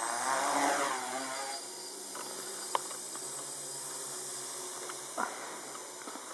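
Tricopter's electric motors and propellers whirring: they speed up in the first second or so, then run steadily with a high hiss. Two short clicks are heard, about three and five seconds in.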